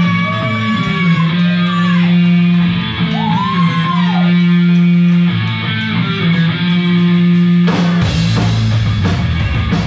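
A live rock band starting a song: electric guitar notes bending up and down over held bass notes, then drums and the full band crash in about eight seconds in.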